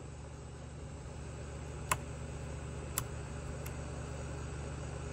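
A steady low hum, with three light clicks about two, three and three and a half seconds in as a hand handles the chainsaw's bar and chain.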